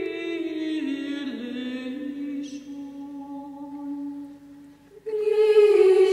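Background music: a sustained, chant-like humming vocal line that steps down in pitch and fades, then a louder music passage starts about five seconds in.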